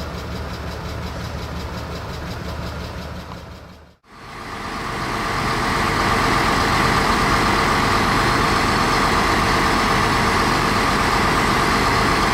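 Vehicle engine idling steadily, fading out about four seconds in; a louder, steady drone with a strong mid-pitched hum then fades in and holds.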